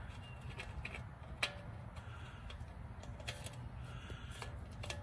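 Faint, irregular metallic clicks and ticks as an EZ drain valve is threaded by hand into the oil pan drain hole of a Ford F250 6.7 Powerstroke diesel, the sharpest click about one and a half seconds in, over a low steady background rumble.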